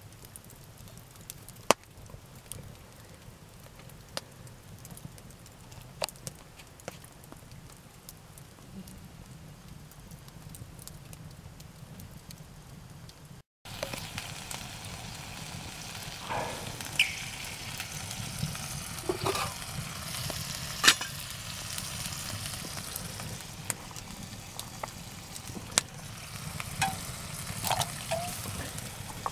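Cooking over an open campfire: a steady hiss with occasional sharp crackling pops. About halfway through the sound cuts and comes back louder, with a steel pot of water boiling on the fire grate and a few short metallic clinks.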